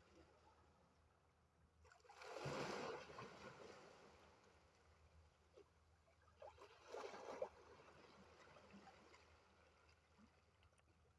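Sea waves washing in, faint: one wave swells up about two seconds in and fades slowly, and a second, shorter one comes about halfway through.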